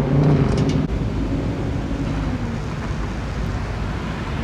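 Street traffic: a steady rush of road noise, with a passing vehicle's engine hum that fades away over the first two seconds or so.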